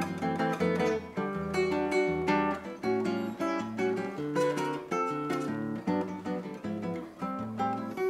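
Solo nylon-string classical guitar played fingerstyle: a bossa nova instrumental with plucked melody notes and chords over a moving bass line.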